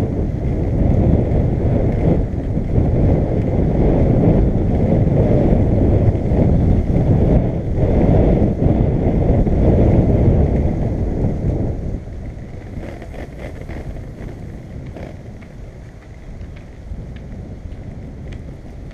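Skateboard wheels rolling over a brick-paver path, a dense low rumble mixed with wind buffeting the microphone. About twelve seconds in the rumble drops to a much quieter level, with a few faint clicks after it.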